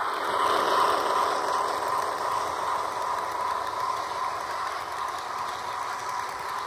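HO scale model train, a Broadway Limited Paragon 4 PRR E6 4-4-2 pulling passenger cars, running on track: a steady whir of wheels and drive with a faint steady tone in it.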